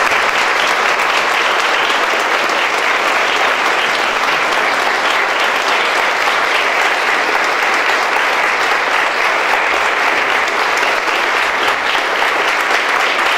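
A roomful of people applauding with steady, sustained hand-clapping.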